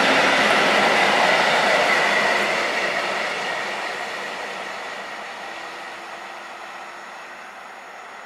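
SKM electric multiple unit accelerating past on the rails, with a high steady whine for the first couple of seconds, then its wheel and motor noise fading steadily as it draws away.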